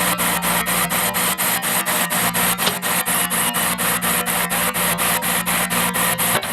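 Heavy earthmoving machine working: a steady engine hum under a rasping noise that pulses evenly about four times a second.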